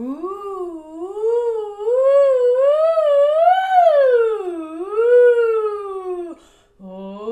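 Siren-style guide tone for a vocal glide exercise: a single pitched sound that starts low, rises in waves to a high point about three and a half seconds in, then falls and stops. A new glide begins from a short held low note near the end.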